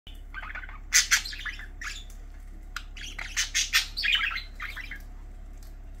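Pet budgerigars chirping and squawking in rapid bursts of short, sharp calls, loudest about a second in and again between three and four seconds in, over a steady low hum.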